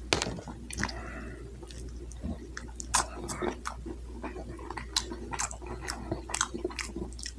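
Close-up mouth sounds of someone chewing shrimp, with frequent irregular wet smacks and clicks.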